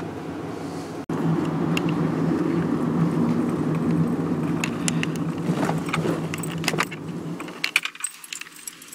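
Car driving, heard from inside the cabin: a steady engine and road hum that gets louder about a second in and eases off near the end, where light clicking comes through.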